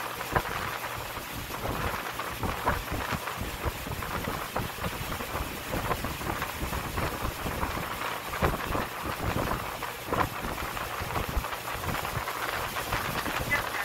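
Watermelons and cardboard boxes being handled during packing: irregular knocks, thuds and cardboard rustling over a steady hiss.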